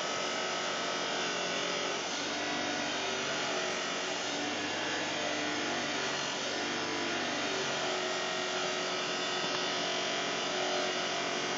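Chop saw cutting through metal, the spinning wheel grinding steadily into the workpiece at an unchanging level.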